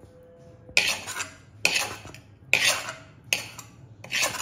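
Steel ladle scraping and clinking against a kadai, five strokes about a second apart, as the last of the mashed greens is scraped out of the pan.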